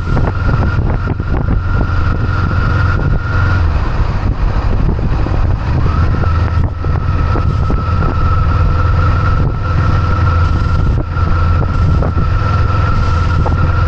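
Kawasaki Eliminator SE motorcycle engine running steadily on the road, heard from the bike with wind buffeting the microphone.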